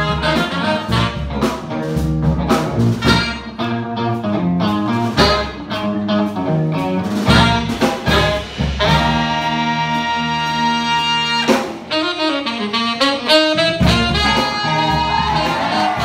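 Live instrumental band with two saxophones and a trumpet over electric guitars, keyboard and drums, playing a jazz-funk tune. About nine seconds in the horns hold a long chord, then the drums drop out for a moment before the full band comes back in.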